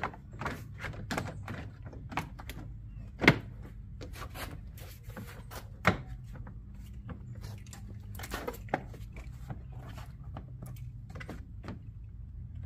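Plastic front grill and trim panels of a Mercedes Sprinter van being pushed and snapped back into place by hand. A run of light clicks and knocks, with two sharper thunks about three and six seconds in.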